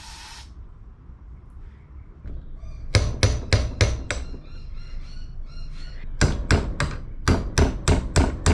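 Hammer blows on metal, knocking at a rusted-on crown race to drive it off a bicycle fork's steerer tube: a quick run of sharp strikes about three seconds in, a few ringing metallic taps, then steady strikes about three a second from about six seconds in.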